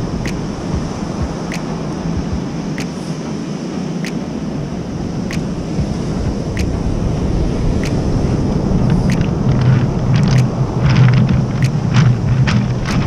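Surf breaking on a cobble beach, a steady rushing rumble with wind buffeting the microphone, growing louder in the second half. From about nine seconds in, stones clatter underfoot as someone walks across the beach cobbles.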